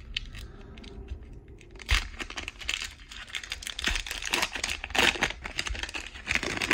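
Foil wrapper of a Panini Contenders football card pack crinkling and tearing as it is ripped open by hand. It gives a dense run of sharp crackles, loudest about two seconds in and again from about four seconds on.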